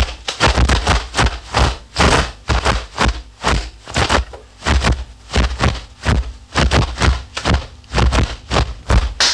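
Rapid, irregular series of sharp swishes and thuds, about three a second: the added sound effects of punches, kicks and snapping sleeves in a solo Mizongquan kung fu routine.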